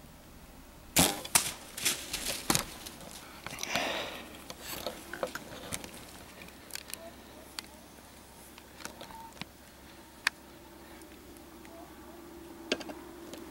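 Hoyt compound bow fired: a sharp crack about a second in, followed by several quick knocks and a burst of rustling over the next few seconds, then scattered faint clicks.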